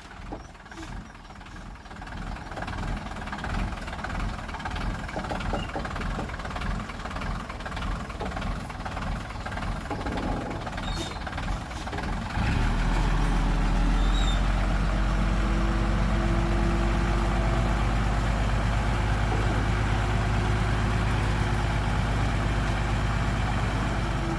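Heavy diesel engine of earth-moving machinery running, with a steady low rumble that jumps louder about halfway through and stays there.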